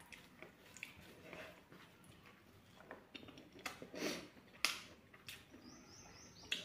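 Someone chewing and biting fried pork close to the microphone: a few short, wet mouth sounds, the loudest about four seconds in.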